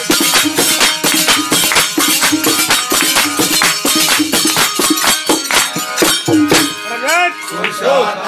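Gujarati bhajan music: a fast, even beat of hand drum and jingling small cymbals over harmonium. The beat stops about seven seconds in, and a voice slides up and down in pitch.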